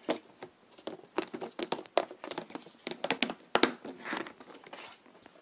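Clear plastic compartment storage box being handled: its lid closed and the box lifted and moved, giving irregular plastic clicks and knocks.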